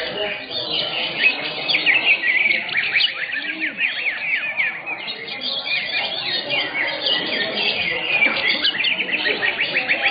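Many caged greater green leafbirds (cucak hijau) singing at once: a dense, unbroken tangle of quick, sweeping chirps and trills overlapping one another, over a low murmur of people.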